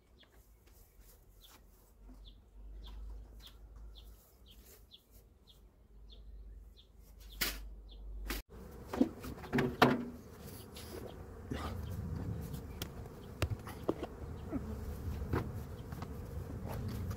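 Honeybees buzzing over an open hive, louder from about eight seconds in, with a few sharp knocks around nine to ten seconds.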